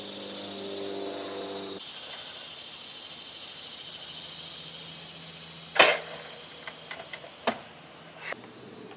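Nerf Longshot spring-powered dart blaster firing once, a sharp pop about two-thirds of the way in, followed by a few light plastic clicks and knocks as the blaster is handled. A steady high hiss runs underneath.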